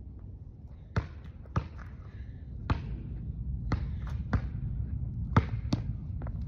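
A basketball bouncing on a hard surface: about eight sharp bounces at an uneven pace, over a steady low background rumble.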